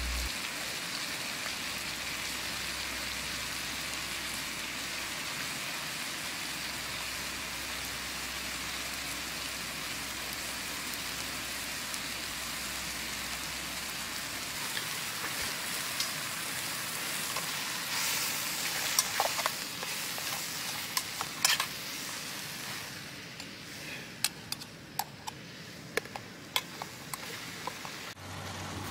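Sliced mushrooms frying in butter and oil in a pan on a gas camp stove, a steady sizzle. Scattered clicks come in the later part, and near the end a titanium spork scrapes as it stirs the pan.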